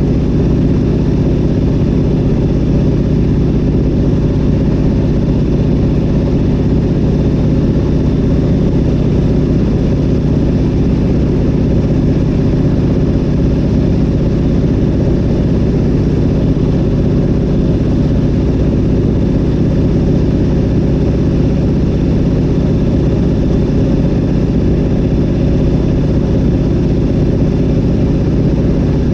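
Zlin Z-37A-2's nine-cylinder M-462RF radial engine and propeller running steadily in flight, a loud, even drone heard inside the cockpit.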